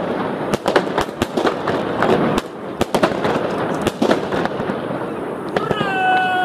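Aerial fireworks going off overhead: a dense, rapid series of sharp bangs and crackles as shells burst into crackling stars. Near the end a drawn-out pitched tone begins over them.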